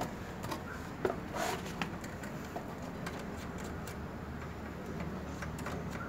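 Faint scattered clicks and light scrapes of a small screwdriver working the terminal screws of a switching power supply as cable wires are fastened, over a steady low hum.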